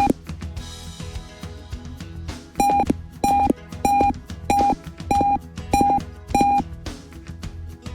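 Piezo buzzer of an Arduino intruder alarm beeping one steady tone: one beep at the very start, then seven short beeps, about one and a half a second, from about two and a half seconds in. Background music plays under it.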